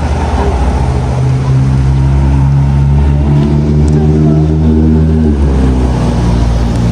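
A car's engine running steadily, with road and wind rush, as the car drives. The engine note shifts about five seconds in.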